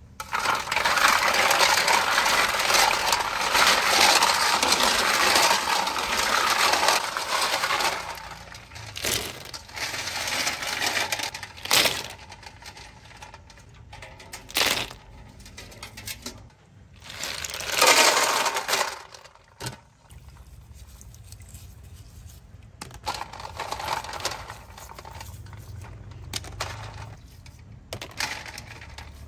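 Hard snail shells clattering and clinking against one another and their container as they are handled. The clatter is dense and continuous for the first several seconds, then comes in separate short bursts.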